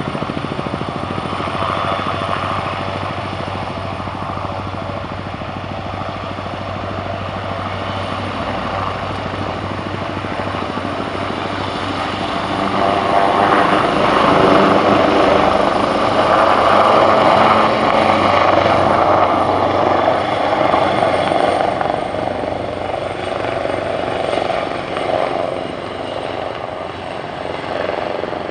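Leonardo helicopter lifting off and flying past, rotor and turbine noise. It grows louder about halfway through, then fades as the helicopter climbs away.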